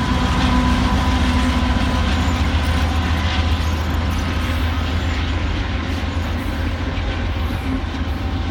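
Canadian Pacific freight train rolling past: a steady low rumble of diesel locomotives and rail cars over the track, slowly growing quieter.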